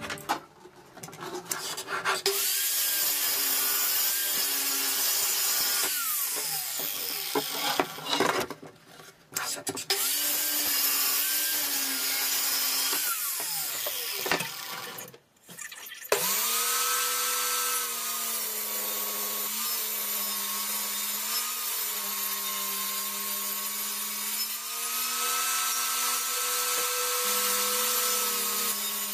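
Power saws cutting wood: a saw motor runs with the blade cutting through timber in two stretches broken by short pauses. About sixteen seconds in, a table saw spins up and runs steadily while boards are ripped through it.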